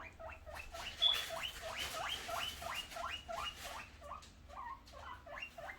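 Guinea pigs wheeking: a rapid run of short rising squeals, about three a second, with one sharper high peep about a second in. It is their begging call in anticipation of food.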